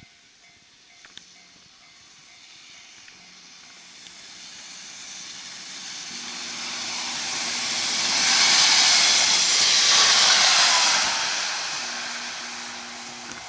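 Two-car KiHa 110-series diesel railcar set passing at a level crossing. The rising noise of its wheels on the rails and its diesel running builds to a peak about eight to eleven seconds in, then fades as it moves away.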